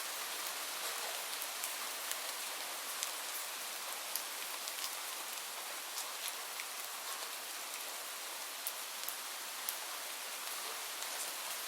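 Light rain falling steadily: an even hiss with scattered sharp ticks of individual drops striking a surface.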